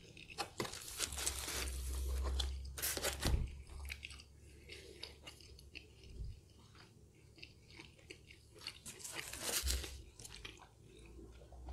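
Chewing and biting into stuffed-crust pizza, with crisp crunches of the crust. The crunching is loudest in the first few seconds and again near the end, with softer chewing in between.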